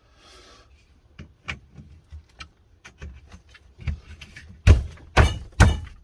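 Greenhouse shelving parts being handled and fitted together: scattered light clicks and knocks, then three loud knocks about half a second apart near the end as pieces are pushed or tapped into place.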